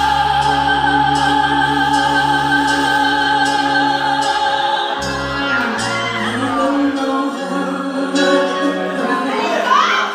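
Live band with electric guitars and keyboard backing a woman singing into a microphone; she holds one long high note for about the first five seconds, after which the low bass drops out and the band plays on more lightly.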